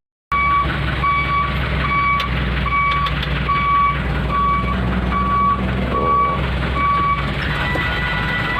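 Heavy lowbed trailer truck's diesel engine running as it reverses, with its reversing alarm beeping steadily a little more than once a second.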